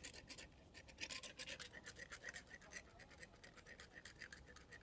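Hand-held equine dental float (metal rasp) filing a donkey's teeth: fast, faint back-and-forth scraping strokes, grinding down the sharp hooks that make eating hard.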